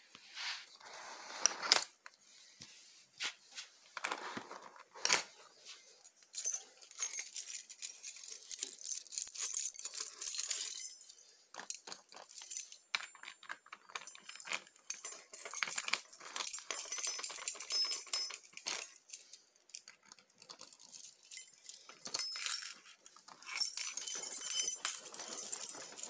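A large bunch of keys jangling and clinking in repeated spells, with small clicks as keys are pushed into a doorknob and deadbolt lock.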